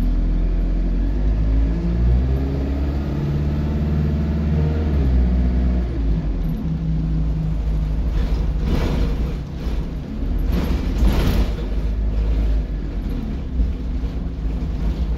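The bus's diesel engine and Allison automatic gearbox heard from inside the saloon. The pitch climbs and shifts through the gears in the first few seconds. Two loud bursts of hiss come about eight and eleven seconds in.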